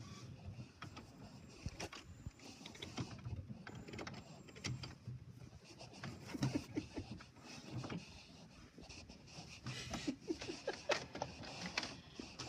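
HP all-in-one inkjet printer's mechanism whirring and clicking in short, irregular bursts, busiest about six seconds in and again near the end.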